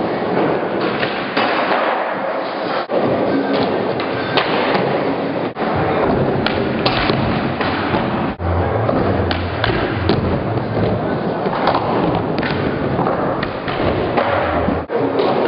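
Skateboard wheels rolling over an indoor skatepark's ramps and floor, with board clacks, slides on ledges and rails, and landing thumps. The sound breaks off briefly four times.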